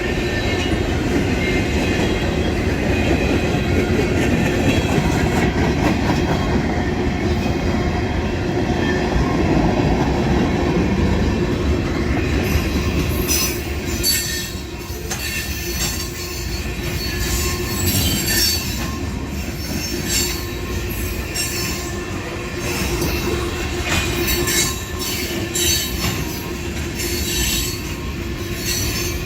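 Freight train cars rolling past on the rails in a continuous heavy rumble. About halfway through, frequent short, sharp high-pitched squeals and clanks from the wheels and cars join in.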